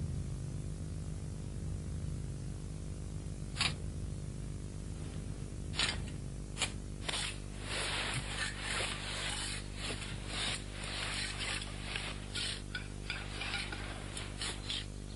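A small shovel scraping and digging into soil, with a few separate knocks before a run of quick, rough scraping strokes from about halfway in, over a steady low hum.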